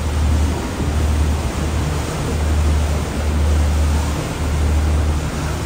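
Moving river cruise boat: a steady rush of wind and water noise over a low rumble that swells and fades.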